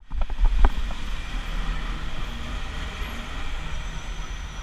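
Street traffic and riding noise picked up by a cyclist's GoPro moving through city traffic: a steady rumble and hiss, with a few sharp knocks and rattles in the first second.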